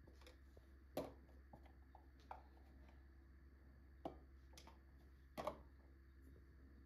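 A few faint, sharp clicks and knocks, four or five spread out, from small plastic spice containers, a spoon and a glass jar being handled and set down on a stone worktop, over a low steady hum.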